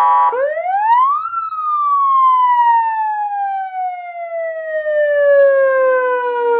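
Electronic vehicle siren, an AS920 200 W amplifier driving a C200TT 200 W stainless-steel siren speaker, on auto mode cycling through its tones. A short steady tone is followed by a wail: the pitch rises sharply for about a second, then falls slowly over the next five seconds.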